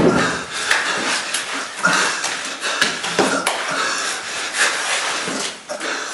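A person breathing heavily, with rasping, wheezing breaths that come in repeated surges. A sharp knock sounds right at the start.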